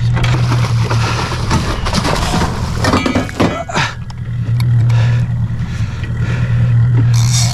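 A boat's motor running steadily, a constant low hum, with wind and splashing water noise over it.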